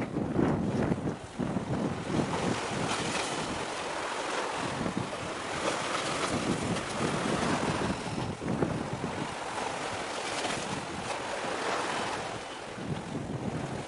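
Wind buffeting the microphone, with the rushing wash of waves swelling and fading every few seconds. The rumbling gusts are heaviest in the first couple of seconds.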